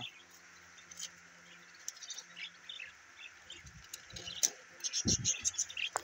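A flock of budgerigars chirping: scattered short, high chirps that grow busier in the last two seconds, with a low bump about five seconds in.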